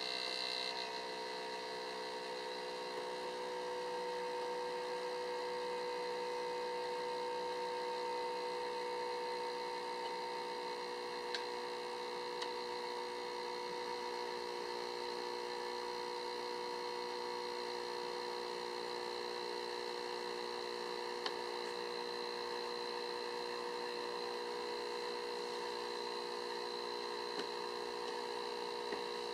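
GeForce GT240 graphics card cooling fan running with an abnormal, very loud noise: a steady hum of several held tones up to a high whine, with a few faint ticks.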